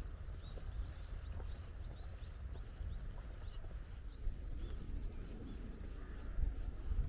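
A bird calling in a quick series of short chirps, about two to three a second, over a steady low rumble.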